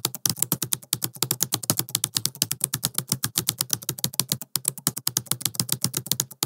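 Rapid computer-keyboard typing clicks, about a dozen a second, with a short break about two-thirds of the way through.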